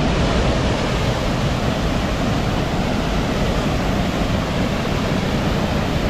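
Steady rush of flowing water in a natural geothermal hot-spring stream, an even continuous noise with no breaks.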